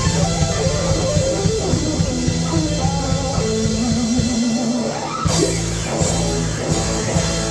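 Live hard-rock band playing: electric guitar lines over drums and bass, with a wavering held note midway.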